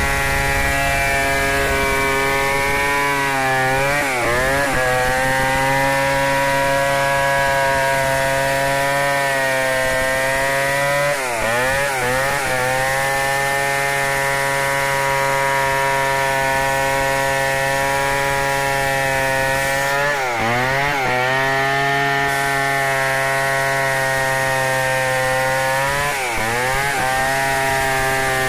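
Stihl 070 two-stroke chainsaw running at high revs while ripping lengthwise through an acacia log in freehand milling. The engine note holds steady and dips briefly in pitch four times as it bogs under the cut, then picks up again each time.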